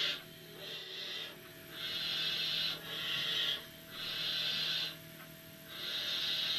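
Barn owl chicks in the nest giving their hissing begging calls: a repeated hiss, about one a second.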